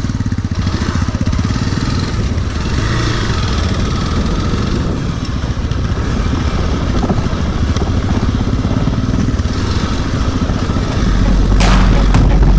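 Hero Xpulse 200 single-cylinder motorcycle engine running as the bike sets off. About eleven seconds in, a heavy low rumble jumps up sharply, with a few sharp cracks near the end.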